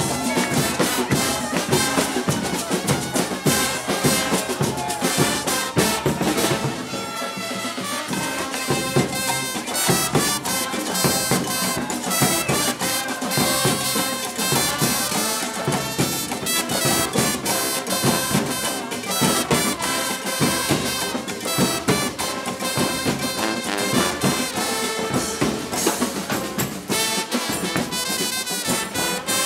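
Brass-and-percussion street band playing on parade, horns over a steady beat of drums.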